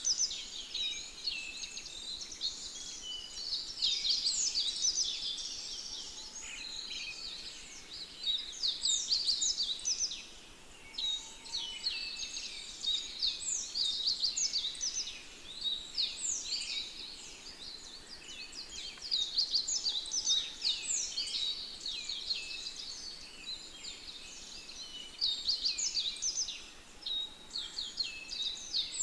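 Many birds chirping at once: a dense run of high, quick, downward-sweeping chirps, several a second, easing off briefly now and then.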